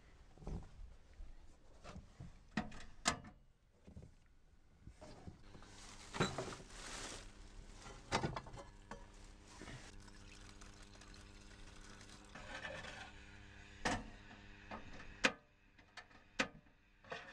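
Handling sounds at a small stove: a plastic bag rustling, then water poured from a plastic bottle into a metal pot, with several sharp clicks and knocks throughout. A low steady hum comes in about halfway through.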